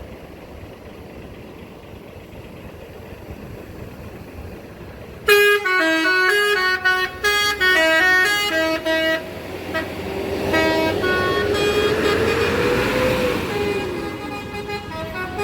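Basuri V2 telolet bus horn playing a quick tune of short, rapidly changing musical notes, starting suddenly about five seconds in after a quiet start. Later a few more notes sound, then a tone slides up and back down over a rushing noise.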